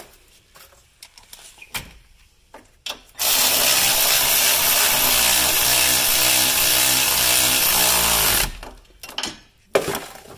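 A small cordless drill runs steadily for about five seconds, starting about three seconds in and stopping abruptly, driving in a mounting bolt of a replacement hub bearing. Light clicks and knocks of the tool and socket come before and after it.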